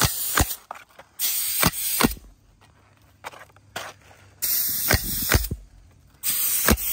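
Pneumatic coil roofing nailer fastening ridge cap shingles: about six sharp nail shots, spread unevenly, with bursts of hissing air around them.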